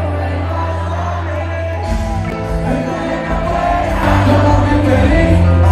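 Live stadium concert music through the PA: a singer over a heavy, sustained bass, with a crowd shouting along. The bass pattern changes about two seconds in, and the music gets louder near the end.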